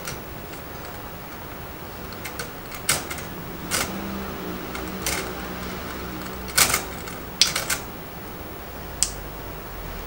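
Budgerigar's beak pecking and nibbling at a plastic cage toy and the wire floor: irregular sharp clicks and taps, some single, some in quick clusters, the loudest a little past the middle.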